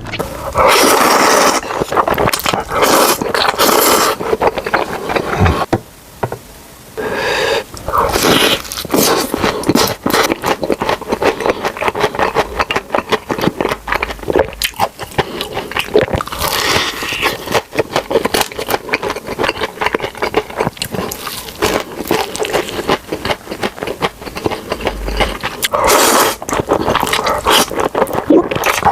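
Close-miked eating sounds: crunchy bites and chewing with dense crackling, dipping briefly about six seconds in.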